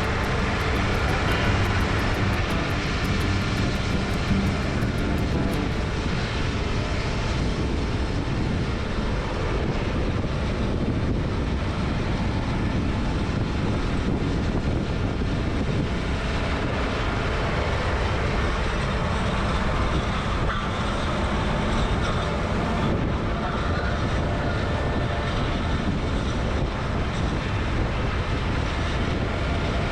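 Heavy diesel harvest machinery running steadily in a beet field: a continuous engine drone with rumbling from the working equipment.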